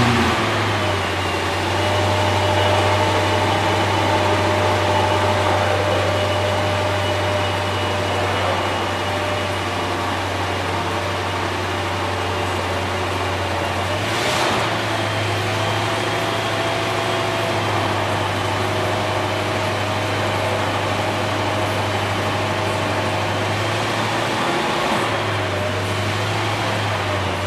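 Bentley Mulsanne Speed's 6.75-litre twin-turbo V8 idling steadily just after a push-button start, with a deep, even hum at the exhaust.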